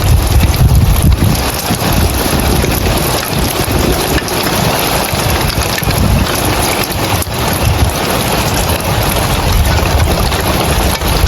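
Rain falling on roof tiles, a steady dense hiss, with wind on the microphone adding a low rumble that rises and falls.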